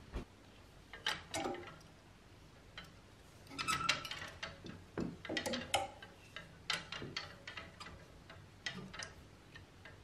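Wooden clothes hangers clacking against each other as hanging clothes are pushed along a closet rail, heard as irregular clusters of sharp clicks.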